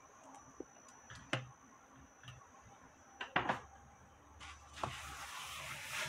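Light knocks and clicks of items being handled inside a refrigerator, the loudest a double knock about three and a half seconds in. Near the end a steady scrubbing hiss starts as a sponge wipes the inside walls.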